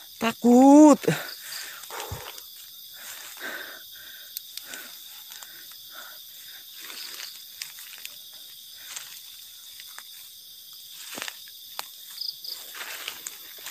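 A steady, high-pitched chorus of crickets and other night insects, with soft, irregular footsteps and rustling on the forest floor as someone walks slowly.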